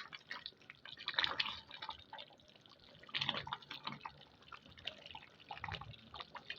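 Thickened chicken curry sauce bubbling in a pot on the heat, with irregular soft plops and pops.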